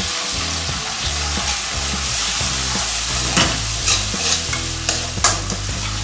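Egg, garlic and onion with oyster sauce sizzling in a hot metal wok while a metal spoon stirs them. The spoon scrapes and clacks against the pan several times in the second half.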